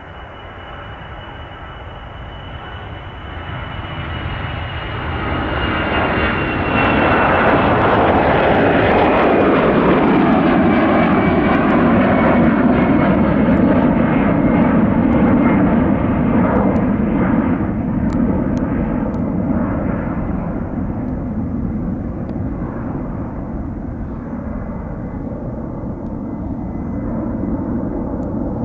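Airbus A319 jet's twin turbofan engines at takeoff thrust, growing louder as it lifts off and passes, with a high whine that glides down in pitch. After the loudest stretch in the middle, the engine rumble eases off as the aircraft climbs away.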